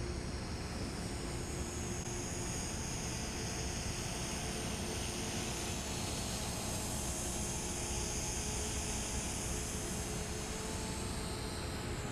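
Blade 450 electric RC helicopter in flight: a steady high whine from its motor and spinning rotors, a little stronger around the middle as it passes closer overhead.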